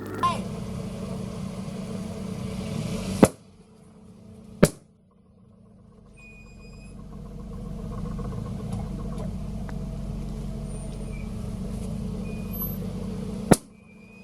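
Car engine running as the car rolls slowly, with three sudden sharp loud cracks, the sound dropping away after the second and building up again over the next few seconds.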